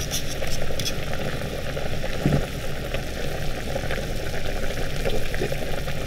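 Large stainless stockpot of beef offal in beer at a full boil: a steady low rumble with bubbling as it comes to the boil and throws up scum. A few light clinks of a metal ladle against the pot come in the first second as the scum is skimmed.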